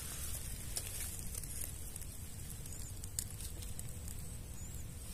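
Quiet outdoor ambience: a steady low rumble with a faint steady hum, a few light clicks and two faint high chirps in the middle.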